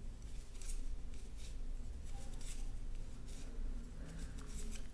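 Wooden knitting needles and yarn being worked stitch by stitch: faint, scratchy rubs and light ticks about twice a second as stitches are knitted, over a low room hum.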